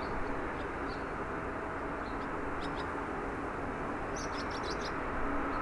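Small birds chirping in short high notes, with a quick run of six or seven chirps about four seconds in, over a steady low rumble of distant airport noise.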